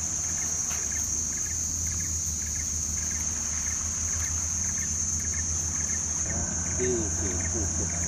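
Insects droning in a steady high-pitched chorus, with short paired chirps repeating about twice a second and a low steady hum underneath; faint voices come in near the end.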